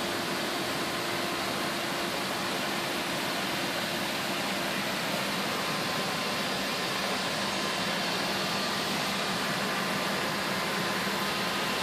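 Steady fan whoosh with a faint hum underneath, unchanging throughout.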